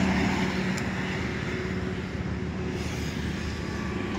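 Massey Ferguson 35 tractor's three-cylinder Simpson diesel engine running steadily.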